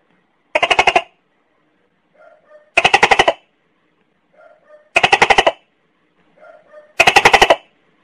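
Tokay gecko calling: four loud calls about two seconds apart, each a quick rattle of pulses lasting about half a second. A softer double note comes just before each of the last three.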